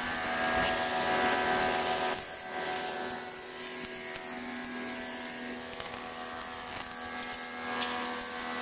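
Kinshin electric pressure washer running. Its motor gives a steady whine of several tones over the hiss of the water jet spraying onto wet tiles. The sound dips briefly about two seconds in.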